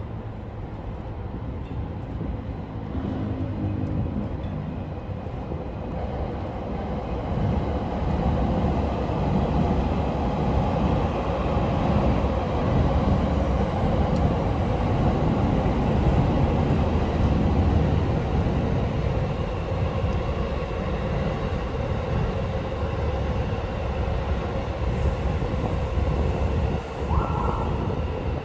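Train passing close by: a loud rumble of wheels on rails that builds over the first several seconds, stays loud for a long stretch, then eases a little near the end.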